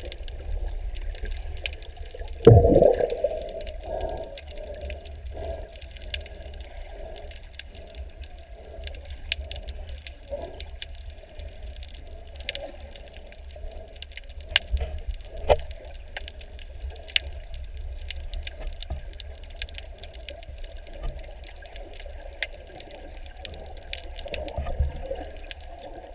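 Water heard through a camera held underwater: a steady muffled rushing with a low rumble and many scattered small clicks and crackles. A loud thump comes about two and a half seconds in.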